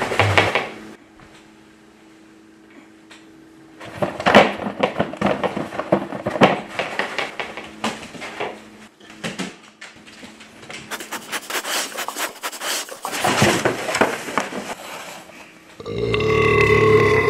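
Scattered clicks and rustling, then a loud, low, drawn-out burp sound effect that starts near the end.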